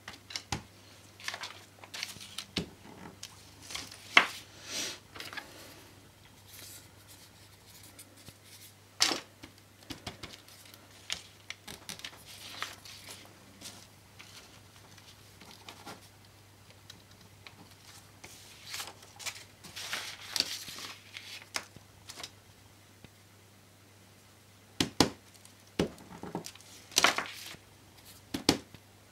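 Paper sheets rustling and crinkling in irregular bursts as they are handled and slid about on a work table, with scattered taps and clicks, over a steady low hum.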